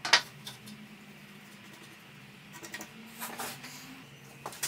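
A few light clicks and knocks as a woodworker handles a glued-up board and sets a bar clamp on it, over a faint steady low hum.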